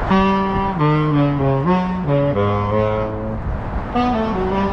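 Saxophone playing a slow melody of low held notes that step up and down in pitch, several notes a second or so apart, with a short pause near the middle.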